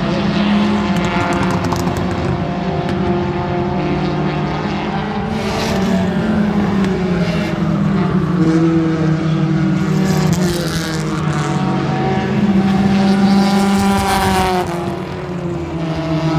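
Several front-wheel-drive race car engines running hard around a short oval, their pitch rising and falling as they rev through the turns. Cars pass close three times, each pass swelling louder.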